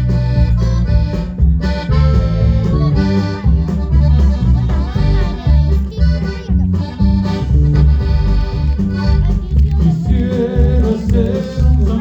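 Loud accordion-led Mexican music with a pulsing bass line.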